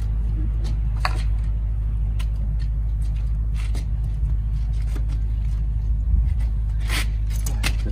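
A few short scraping strokes of knives on a scalded pig's skin as the hair is scraped off, heard over a steady low rumble.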